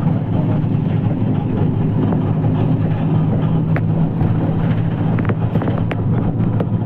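An engine running at a steady low drone, with a few faint clicks in the second half.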